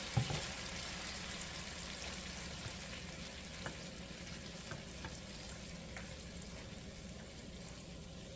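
Minced garlic and ginger sizzling in oil in a pot, the sizzle slowly getting quieter. A short knock comes just after the start, with a few faint clicks later.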